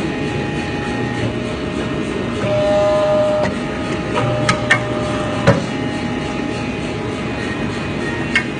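Steady mechanical din of running machinery, with a few sharp clanks about four and a half to five and a half seconds in and once more near the end.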